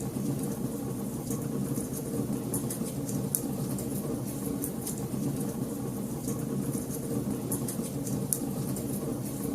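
Wood fire burning in a fireplace: a steady low rumble of the flames with frequent, irregular sharp crackles and pops.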